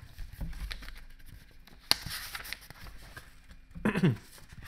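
Pages of a paper picture book being flipped and handled close to the microphone: rustling paper with low bumps and a sharp snap of a page about two seconds in. Near the end a brief low vocal sound from the reader.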